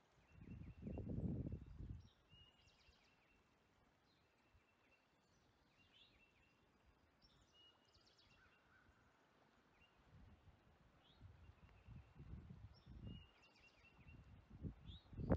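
Small birds chirping over and over in short high notes, with wind gusting on the microphone as a low rumble about a second in and again over the last few seconds.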